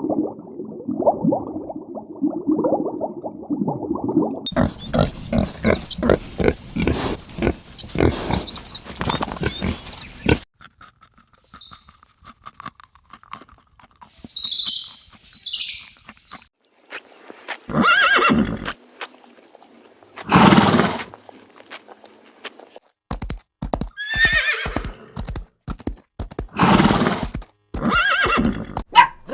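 A run of animal calls ending in horse whinnies: several separate whinnies, each about a second long, fill the second half, after other muffled and clicky animal sounds in the first half.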